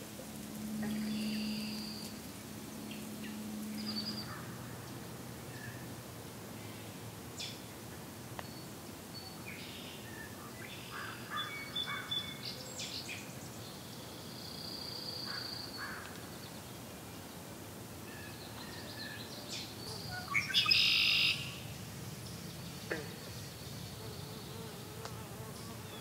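Outdoor wetland ambience: a flying insect buzzes close by as a low steady hum for the first few seconds, with a fainter hum after. Various songbirds call and chirp throughout, with a louder burst of calls about three-quarters of the way through.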